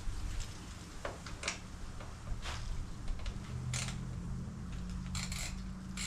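Scattered clicks and clinks of hand tools and metal parts being handled during engine-bay work, about one a second, with a low steady hum coming in about three seconds in.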